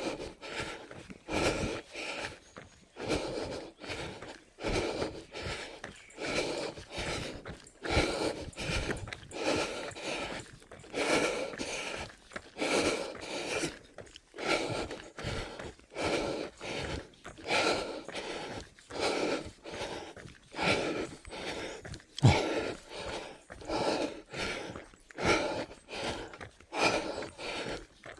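Heavy, rhythmic panting of a runner climbing a mountain trail, about one loud breath a second, with footsteps.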